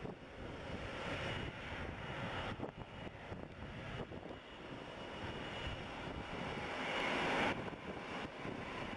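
Boeing 777-200ER's twin turbofan jet engines running at taxi power: a steady rushing noise with a faint high whine. It grows louder over most of the stretch, then drops off suddenly near the end.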